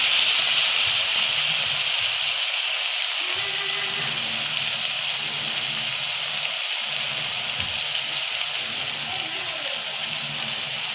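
Onions and capsicum sizzling in an aluminium kadai, a steady hiss that slowly dies down, with light clinks of a metal slotted spatula against the pan as the vegetables are stirred with soy sauce just added.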